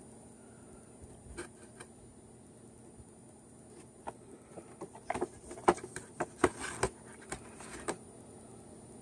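Items and packaging from a subscription box being handled: a scatter of light clicks, taps and rustles, busiest from about four to eight seconds in.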